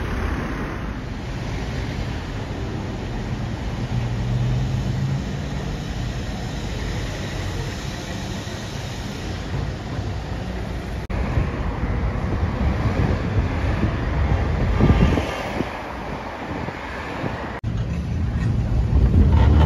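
City street traffic: cars running and passing with a steady low rumble, louder for a moment about three-quarters of the way through, and briefly dropping out twice.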